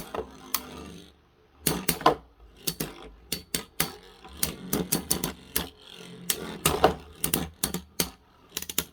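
Metal Fusion Beyblade spinning tops, Dark Bull against a left-spin opponent, clashing in a plastic stadium: irregular sharp clicks and clacks, about two a second, with a brief lull about a second in.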